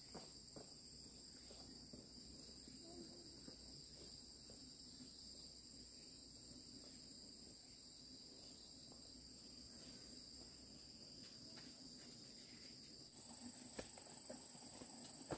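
Faint, steady high-pitched drone of insects chirring, with a few light ticks and rustles.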